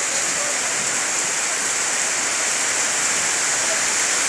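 Heavy rain pouring down: a steady, even hiss with no breaks.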